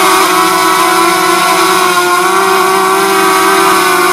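DJI Mavic Mini drone's propellers whining in flight: a steady, loud multi-tone buzz whose pitch wavers only slightly.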